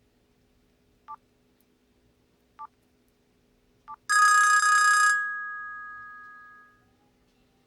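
Hitachi W43H mobile phone giving three short key beeps about a second and a half apart, then a loud bell-like ringtone tone lasting about a second that fades away over the next two seconds.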